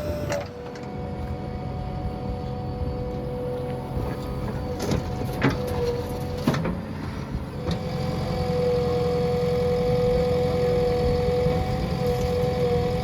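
Diesel engine of a working earthmoving machine running, with a steady high whine that grows louder about eight seconds in. A few sharp knocks around the middle.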